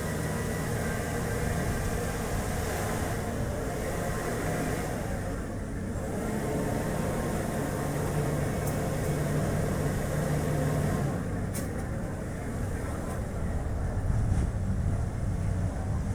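Chevrolet Spark city car driving: a steady engine hum under tyre and road noise, with wind rushing past.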